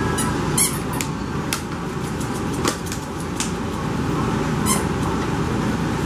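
A steady background hum, with scattered small clicks and squeaks as seven-week-old French Bulldog puppies scamper and tussle on a blanket.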